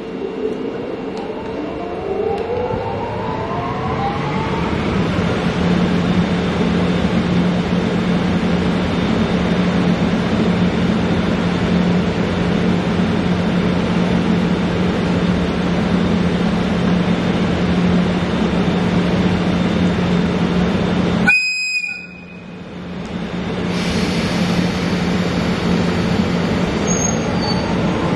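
JR EF64 electric locomotive standing with its blowers running: a rising whine over the first few seconds, then a steady loud hum. About 21 seconds in, a short high-pitched whistle blast sounds, the noise briefly drops, then builds back up.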